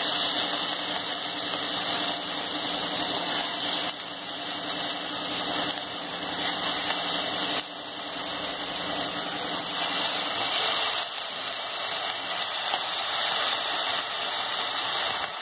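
Marinated chicken pieces sizzling in hot oil in a nonstick frying pan: a steady, hissing sizzle, with a low steady hum underneath.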